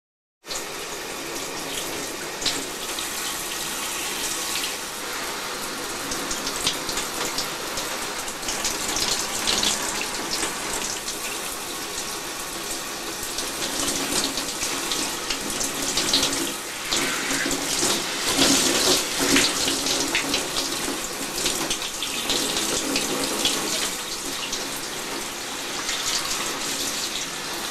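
Shower running: a steady spray of water falling on a person and the tiled floor, with uneven splashing. It starts abruptly about half a second in.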